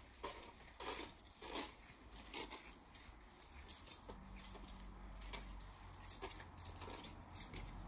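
Small plastic toy water pistols squirting watered-down paint at paper on a fence: a run of short spurts and sharp plastic clicks. A low rumble sets in about halfway.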